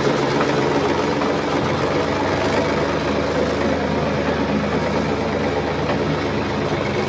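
Heavy farm-machine engine, likely a tractor's, running steadily with a low, even drone.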